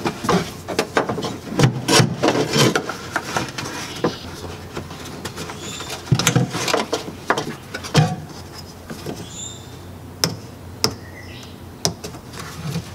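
An EVAP vent hose being handled and pushed over and under a metal bracket beneath a car: rubbing and scraping with many sharp clicks and knocks, densest in the first few seconds, then a few single clicks near the end.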